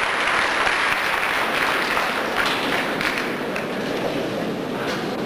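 Concert-hall audience applauding: a dense ovation at first that thins to looser, scattered clapping toward the end.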